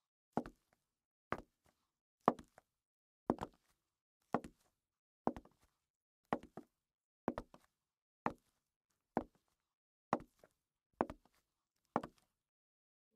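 Slow, even footsteps on a polished wooden floor, about one a second, each a sharp heel strike followed by a softer toe tap.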